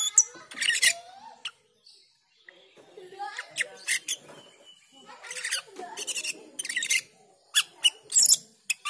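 Asian glossy starling calling. Sharp, high, piercing notes come at the start and again near the end, with a run of lower chattering and warbling between them.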